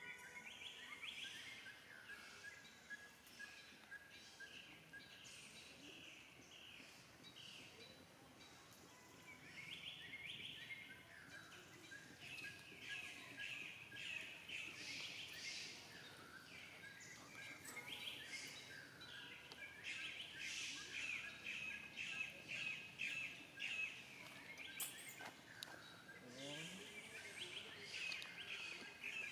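Faint outdoor chorus of short, high chirping calls, repeated many times in quick runs, over a steady background hiss.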